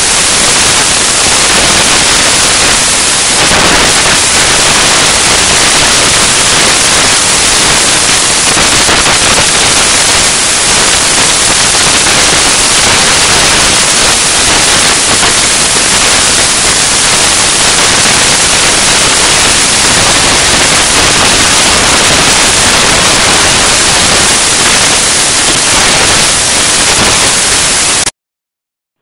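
Loud, steady static-like hiss with no pattern to it, cutting off suddenly about a second before the end.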